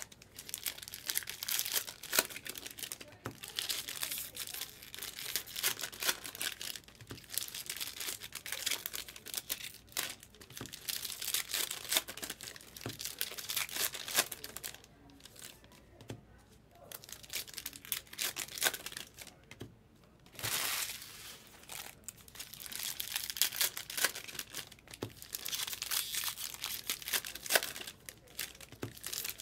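Foil wrappers of Topps Heritage baseball card packs being torn open and crinkled by hand, coming in fits of rustling with a couple of brief lulls past the middle.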